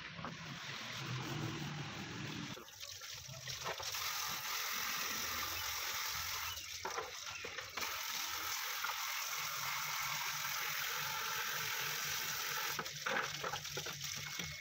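Water pouring from a garden hose over red plastic tail light lens pieces and splashing onto a concrete floor as they are rubbed clean by hand. It sets in steadily about three seconds in.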